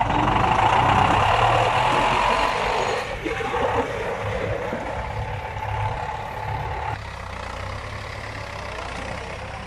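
David Brown 1490 tractor's four-cylinder diesel engine running steadily as the tractor drives, with a steady whine over it that stops about seven seconds in. It is loudest in the first few seconds and then grows fainter.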